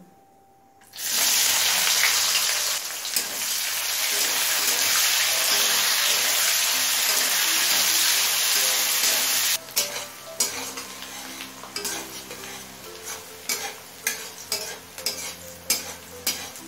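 Sliced onions dropped into hot mustard oil in a metal kadai, starting a loud sizzle about a second in. The sizzle drops off suddenly near the middle, leaving a softer frying hiss under repeated clicks and scrapes of a flat spatula stirring the onions against the pan.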